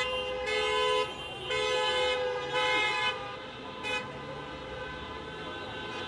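Vehicle horns honking in several long blasts, loudest in the first three seconds and then going on more faintly.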